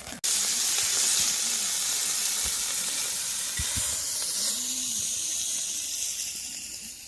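Food sizzling on a hot grill pan: a loud hiss that cuts in suddenly and slowly dies down.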